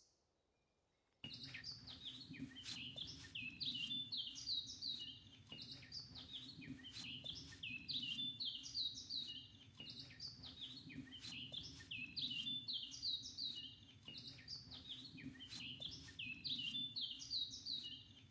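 Woodland songbirds singing: short chirping phrases of quick descending notes, repeating every second or two over a faint steady low hum. The sound cuts in abruptly about a second in.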